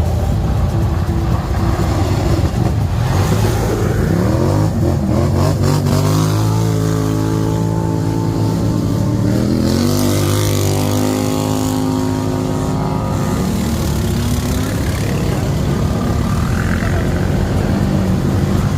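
ATV engine running under load, its pitch rising as it revs up about four seconds in and again about ten seconds in, then falling back.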